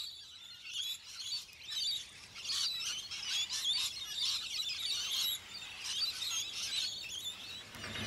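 A flock of rainbow lorikeets calling, with many short, high, wavering calls overlapping without a break.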